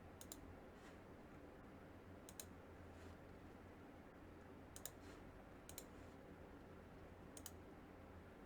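Near silence over a low steady hum, broken by about five faint, sharp clicks spread irregularly a second or two apart, some of them doubled.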